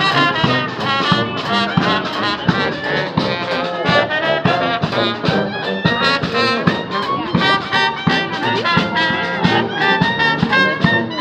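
Small brass band playing a lively tune: trumpet, trombone and tuba over a steady bass drum beat.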